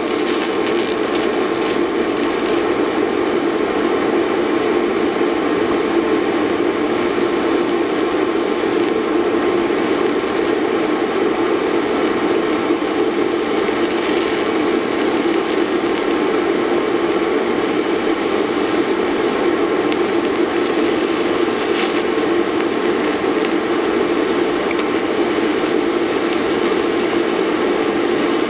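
TIG welding arc burning on steel: a steady, continuous buzzing hiss that holds level without a break.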